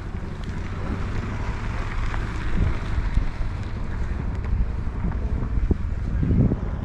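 Wind buffeting the microphone outdoors, a low rumble that swells and dips in gusts.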